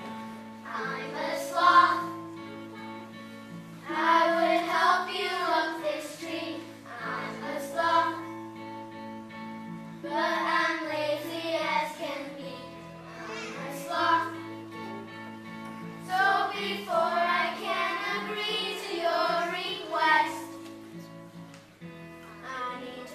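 Children singing a song in phrases of a few seconds, over held chords from a guitar.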